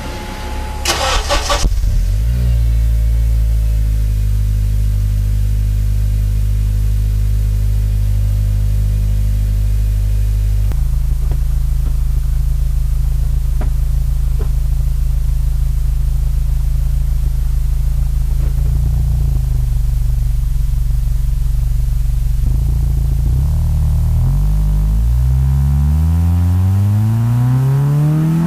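Acura TSX with a Yonaka cat-back exhaust starting up: a brief crank about a second in, then the engine catches and settles into a steady idle whose note changes about ten seconds later. Near the end the revs climb gradually.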